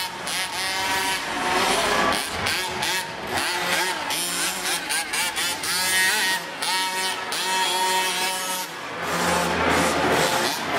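Radio-controlled cars' motors whining, their pitch rising and falling again and again as they speed up and slow down, with scattered knocks and clatter.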